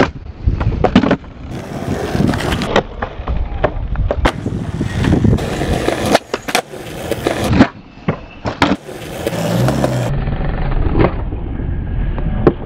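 Skateboard wheels rolling on concrete, broken by repeated sharp clacks of the tail popping and the board landing as 360 flips are done.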